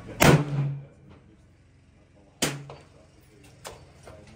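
A scoped rifle fired once, a loud shot with a ringing tail. A second, quieter bang follows about two seconds later, and a few light clicks near the end as the rifle's bolt is worked.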